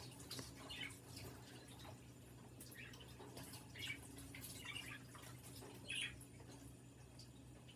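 Faint splashing and dripping of water as a budgie bathes in a shallow water dish, in short irregular splashes, one louder about six seconds in.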